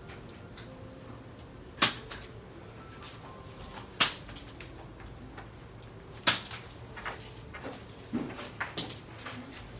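Spring-loaded chiropractic Activator adjusting instrument firing: three sharp clicks about two seconds apart, then several softer clicks near the end. Each click is a low-force spring thrust delivering an adjustment.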